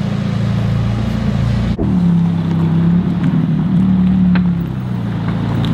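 McLaren 570S's twin-turbocharged V8 running at low revs, a steady low drone that grows a little louder and higher from about two seconds in, easing back near the end.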